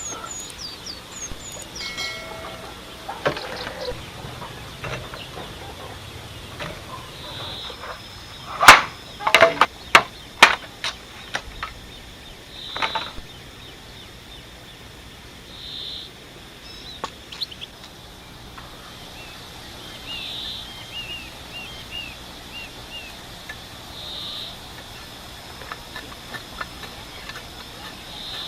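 Small birds chirping with short repeated calls at intervals. A quick run of sharp knocks or cracks about a third of the way in, and one more soon after, stand out as the loudest sounds.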